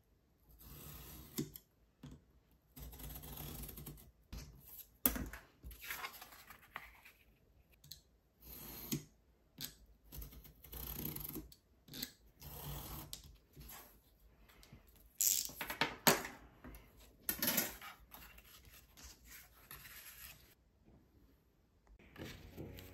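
A hand tool drawn along a steel ruler, scoring cardboard in a series of scraping strokes about a second long each. There is a sharper knock about five seconds in, and the loudest scrapes come in the middle.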